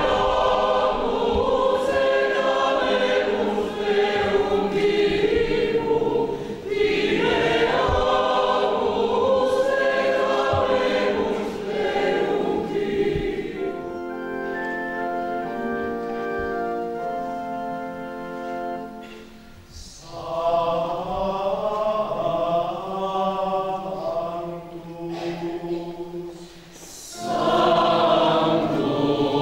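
Choir singing liturgical music in phrases. Around the middle the moving voices give way to a few seconds of steady held notes, then the singing resumes and swells near the end.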